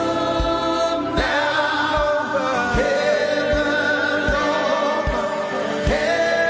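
Gospel worship music: voices singing over keys, with a slow, steady low drum beat about once every 0.8 seconds.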